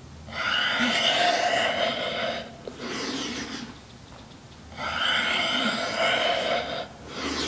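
A man breathing audibly and hard, his breath paced to repeated chest-and-leg lifts lying on his belly. Two long, loud breaths of about two seconds each alternate with shorter, softer ones.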